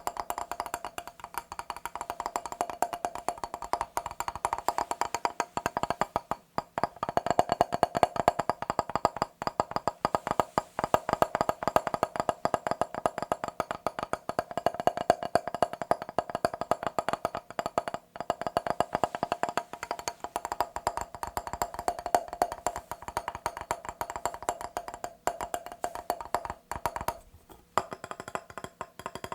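Rapid tapping on a mirror, many quick taps a second with a light glassy ring, pausing briefly near the end.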